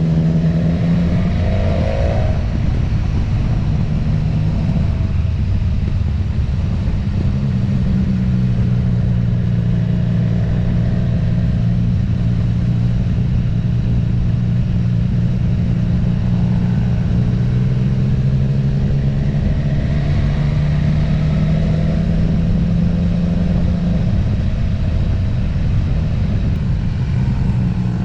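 A motor vehicle engine running at a steady cruise over heavy low road and wind rumble. Its pitch holds steady and shifts a few times.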